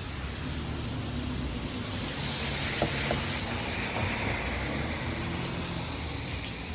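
Steady rain with a low rolling rumble of thunder, swelling about halfway through and easing off again.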